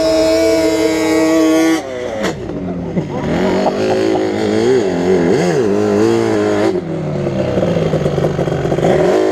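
Sport quad engines running and revving. A held steady engine note drops away about two seconds in. Then an engine's pitch rises and dips in quick blips through the middle before settling to a steady run near the end.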